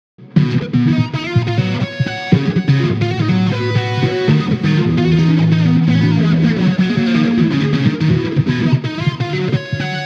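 Electric guitar with a Cycfi polyphonic pickup played through a polyphonic auto-wah: each string runs through its own Synquanon Hex VCF filter, opened by its own envelope follower as that string is plucked, then through per-string amp simulation with a little delay and reverb. Single notes and held notes, starting a moment in.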